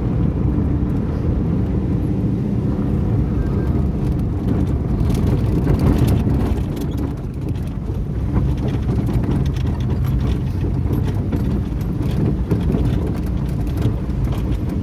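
Engine running steadily with a low, continuous rumble.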